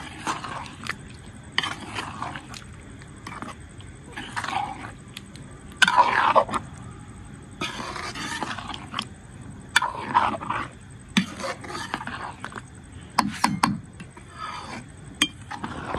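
A slotted metal spoon scraping and stirring through thick chicken gravy in a karahi, in short irregular strokes every second or two.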